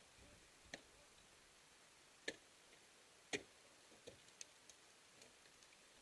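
A handful of sharp, irregular ticks over near silence, the two loudest about a second apart near the middle: ice axe picks and crampon points striking the frozen waterfall.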